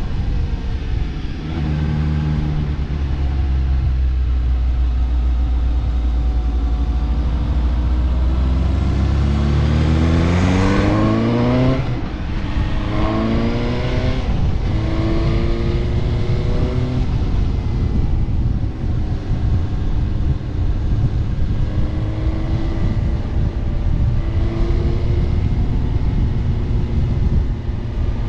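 Vehicle engine under way. Its pitch holds steady, then climbs for about three seconds as it revs up, drops, and makes two shorter climbs, like upshifts through the gears. After that it runs at an even pace over a steady road rumble.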